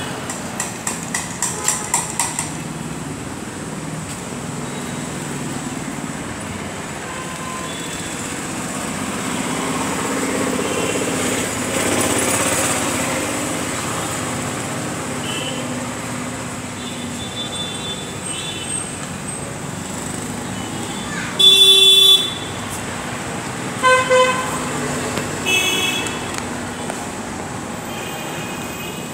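Street traffic noise with vehicle horns honking: one long, loud honk about three-quarters of the way through, followed by two shorter honks. Near the start there is a fast run of short beeps, and about halfway through the traffic noise swells as a vehicle passes.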